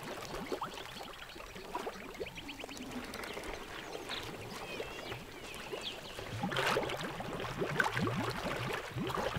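African elephants' trunks dipping into and sipping water at the surface of a shallow pool, with small trickles and splashes that grow busier about two-thirds of the way in. Faint chirping calls in the background.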